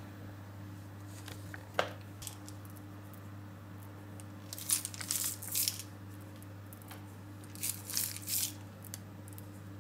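Colored sprinkles and chopped almonds scattered by hand onto chocolate-dipped butter cookies on parchment paper, heard as two short bouts of fine pattering and crinkling, one just before the middle and one near the end. A single sharp tap about two seconds in, over a steady low hum.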